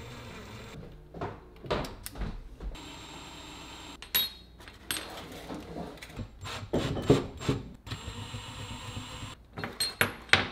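Irregular clicks, knocks and scrapes of tools and hands working on a flat-pack kitchen base cabinet, with a few short noisy bursts among them.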